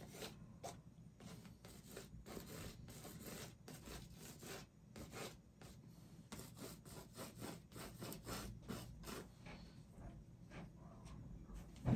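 Paintbrush bristles stroking and scrubbing across a canvas, a quick uneven run of soft scratchy strokes, about two to three a second.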